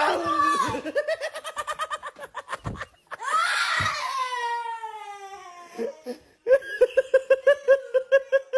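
A young boy screams in fright at a scare prank, followed by quick, high, rapid laughter. About three seconds in comes a long cry that falls in pitch, and near the end another run of quick laughter.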